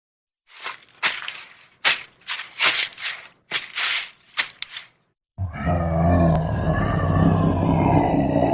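Footsteps crunching through the forest floor, about ten steps. About five seconds in, a monstrous creature's deep growl starts abruptly and continues loud and low: a horror sound effect.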